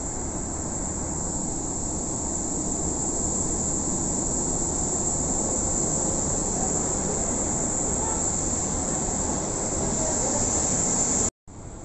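Steady rush of air with a high whine from a parked Boeing 777-200's running systems, its cabin air conditioning fed by the auxiliary power unit. It grows gradually louder toward the forward door and cuts out abruptly near the end.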